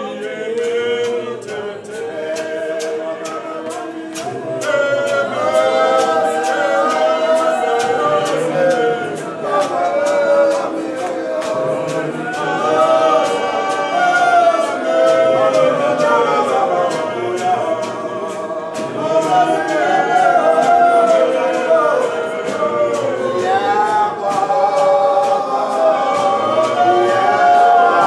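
A choir of voices singing a capella in harmony, with sharp taps marking time. The singing grows louder about four seconds in.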